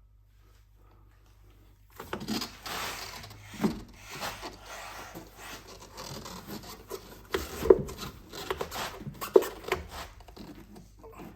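Front suspension parts being worked and forced by hand: scraping and rubbing that starts about two seconds in, broken by several sharp knocks.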